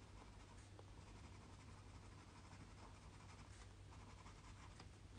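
Faint, soft scratching of a pencil shading on a paper drawing tile, in small irregular strokes.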